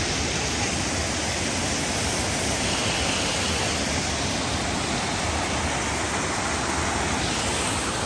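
Small creek waterfall pouring over a rock ledge, heard close up: a steady rush of water.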